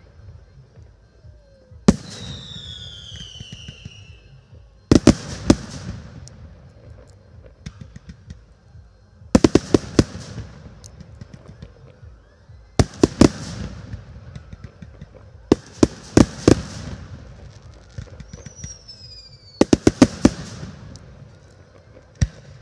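Fireworks display: aerial shells going off in clusters of sharp, loud bangs every three to four seconds. A high whistle falls in pitch about two seconds in and again later on.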